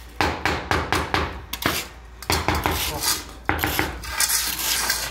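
Small hammer tapping a São Tomé flagstone down into its mortar bed to level it under a straightedge: runs of sharp taps on the stone. Near the end a steadier scraping takes over.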